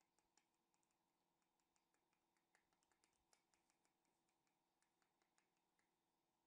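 Near silence: faint room tone with soft, irregular ticking clicks, several a second.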